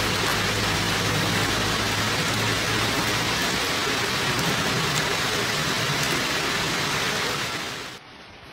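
Steady, even hiss, fading and falling away sharply about eight seconds in.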